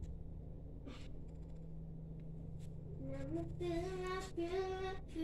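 A girl's voice singing a few held notes without words, starting about three seconds in, over a low steady hum.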